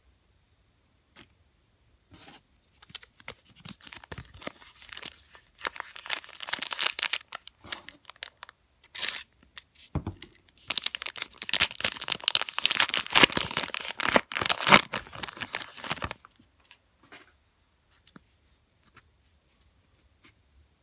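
Foil wrapper of an Allen & Ginter baseball card pack being torn and peeled open, crinkling in bursts for about fourteen seconds and loudest toward the end of the opening, followed by a few faint clicks.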